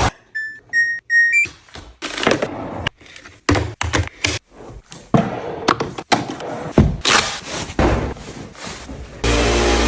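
Three short electronic beeps, the last one a little higher, followed by a run of irregular knocks and thuds. Music starts near the end.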